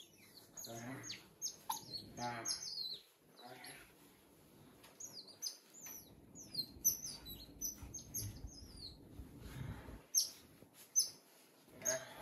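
Otters chirping rapidly, many short high-pitched chirps one after another, several falling in pitch, with a few longer wavering whines in the first few seconds. A low rustle of bedding comes through in the middle.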